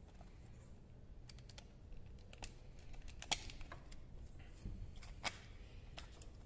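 Faint scattered clicks and light taps of small metal and plastic parts being handled as a replacement carburetor and its intake gasket are fitted by hand onto an auger engine, with two sharper clicks about three and five seconds in.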